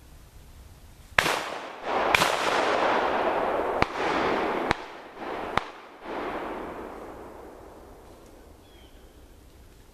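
Shotgun fire at ducks: five sharp shots in a little under five seconds, with a long rolling echo after them that dies away.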